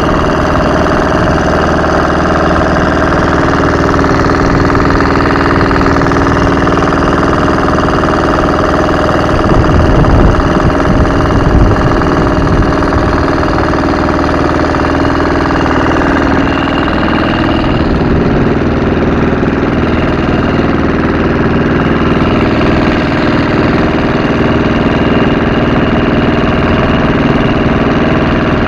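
Wooden motorboat's engine running steadily with the boat under way, a constant even drone. About ten seconds in, a louder low rumble rises over it for a few seconds.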